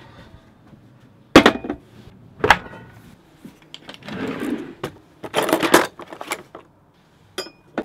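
Two sharp knocks, the first and loudest about a second and a half in, then a kitchen drawer sliding open and metal utensils and tools clattering and rattling as a hand rummages through it.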